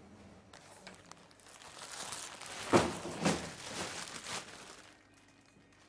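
Plastic rubbish bag rustling and crumpling, with four loud crunchy crinkles in the middle before it dies away.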